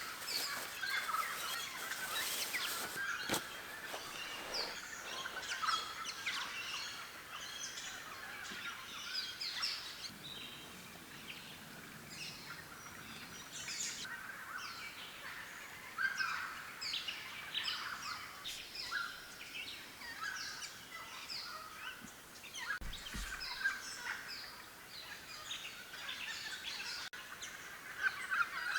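Wild birds calling in bush, a busy chorus of short chirps and calls overlapping throughout.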